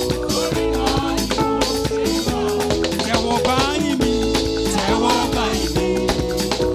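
Upbeat Nigerian gospel praise music from a live band, with a steady dance beat and percussion.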